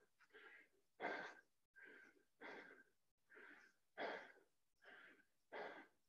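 Faint, rapid, heavy breathing from exertion during burpees: panting, about eight short breaths, roughly one every three quarters of a second.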